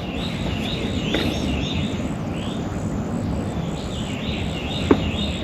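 Birds chirping in short repeated calls over a steady rushing background noise, with one sharp click near the end.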